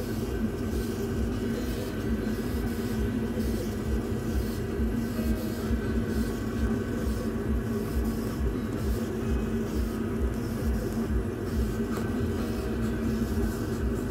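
Laser engraver raster-engraving a photo into a wooden board: the head's drive motors whir back and forth in a quick, even rhythm over a steady machine hum.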